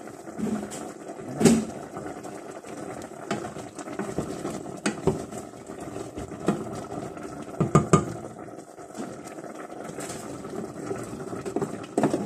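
Wooden spoon stirring food in a steaming stainless-steel stockpot, with a few knocks and scrapes against the pot over a steady simmering.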